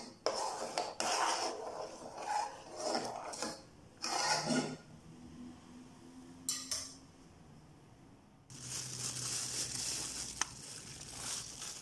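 Metal spoon scraping and stirring around an aluminium saucepan of oat porridge, in repeated strokes for about four and a half seconds, then one more brief scrape. About eight and a half seconds in, a steady rustle begins: a hand rummaging in a plastic bag of millet grain.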